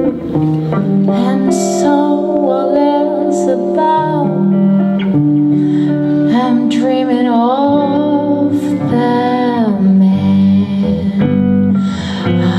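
A woman singing into a microphone with a semi-hollow electric guitar playing along, a live voice-and-guitar duo; her voice holds and slides between notes over the guitar's sustained chords.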